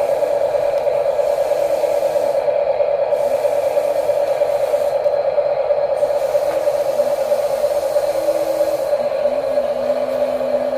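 Small electric motors and plastic gearboxes of toy-grade RC construction machines whirring steadily, with shorter lower-pitched motor tones starting and stopping as individual functions run.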